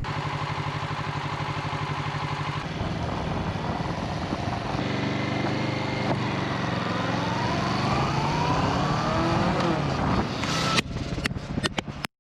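Motorcycle engine running under way, its pitch rising in the second half as it speeds up. A few sharp clicks come near the end before the sound cuts off abruptly.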